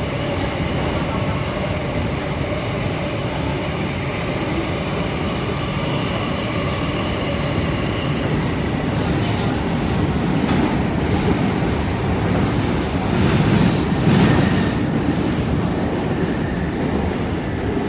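New York City subway car running at speed in a tunnel, heard from inside the car: a steady rumble of wheels on rails, with a run of wheel clacks over the track from about nine seconds in, loudest around fourteen seconds.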